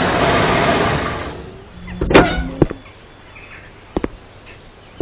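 Cartoon sound effects of a car arriving: a loud whoosh as it rushes up, a sharp bang about two seconds in, then a few lighter knocks like a car door.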